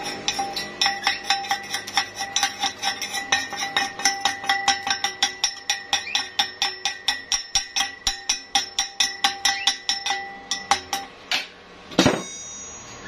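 Chipping hammer knocking slag off a fresh weld bead on a steel pipe: rapid, evenly repeated taps, about four or five a second, each leaving the pipe ringing. The tapping stops near the end, followed by one louder knock.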